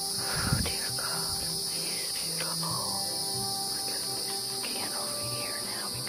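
Insect chorus, a steady high-pitched buzz, with several short falling calls over it and a soft bump about half a second in.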